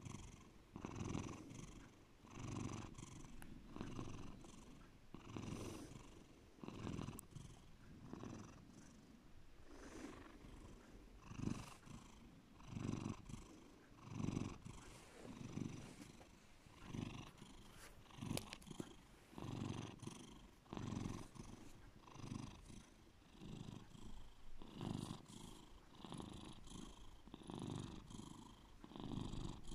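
Domestic cat purring deeply, the low purr swelling and fading with its breaths about once a second.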